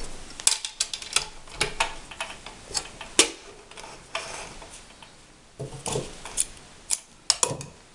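Scattered clicks and knocks from a JCPenney model 6940 sewing machine being handled with its motor stopped: the handwheel is turned by hand and the denim sample is pulled from under the presser foot, with some rustling of cloth.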